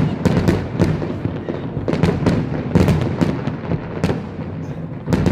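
Fireworks display: a dense run of bangs and crackles at irregular, close intervals over a continuous rumble of distant bursts.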